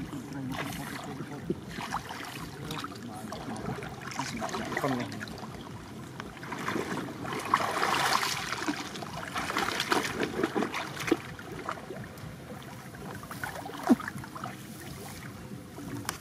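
Floodwater sloshing and splashing around a person wading waist-deep and reaching down into it among reeds and brush, with rustling of stems. The splashing is heaviest about halfway through, and there is a single sharp click near the end.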